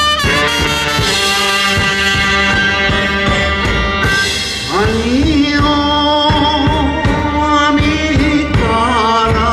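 Live band playing an enka song. About halfway through, a male singer comes in, sliding up into a long held note with vibrato over the band.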